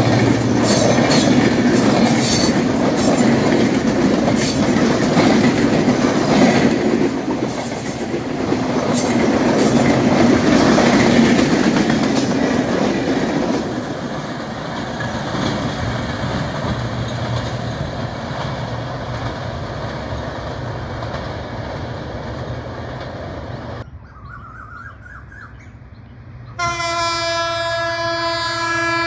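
Intercity passenger coaches rushing past at speed, wheels clattering over the rail joints, then the train's sound fades as it draws away. Near the end, after a quiet stretch, a diesel locomotive's horn sounds one long chord-like blast of about two and a half seconds.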